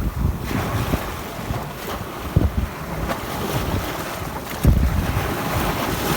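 Sea waves washing against the shore, with wind buffeting the microphone in low rumbling gusts, strongest at the start, about two and a half seconds in and near the five-second mark.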